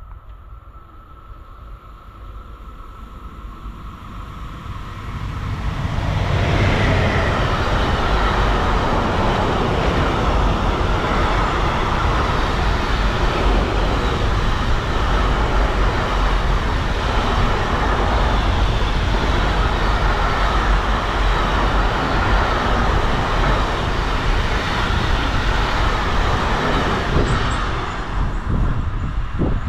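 Long container freight train passing on an electrified main line: its noise builds as it approaches over the first few seconds, then the wagons roll by in a loud, steady rumble and rattle for about twenty seconds, and the sound drops away as the last wagon passes near the end.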